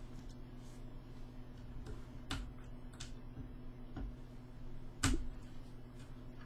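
A handful of sharp plastic clicks and snaps as the tops of Cherry MX switches are prised open in the keyboard plate with a small Allen wrench and a flathead blade, the loudest snap about five seconds in. A steady low hum underneath.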